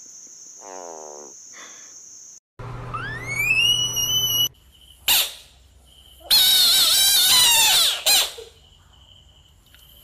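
Frogs calling. A hand-held bullfrog gives a short wavering cry about a second in. Then comes a smooth rising whistle-like glide, and later a long, loud, wavering squeal.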